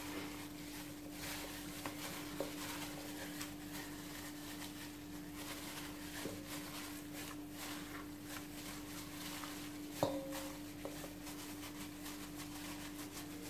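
Plastic-gloved hand rubbing seasoned raw chicken pieces in a stainless steel bowl: faint squishing and plastic crinkling with scattered small clicks, and a sharper knock against the bowl about ten seconds in, over a steady hum.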